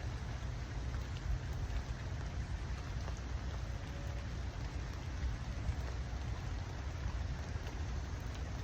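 Steady rain falling, a constant hiss with a few faint drop ticks, over a continuous low rumble.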